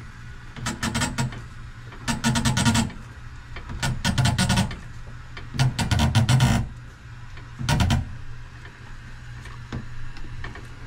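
Gloved hands twisting the clear plastic bowl of a WVC34 whole-house water filter housing onto its head to tighten it. Five separate bursts of rubbing and clicking are heard, one per hand-turn of the bowl on its threads, over a steady low hum.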